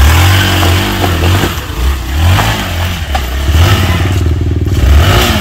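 Off-road motorcycle engine revving hard as the bike pulls away, its note rising and falling several times with the throttle.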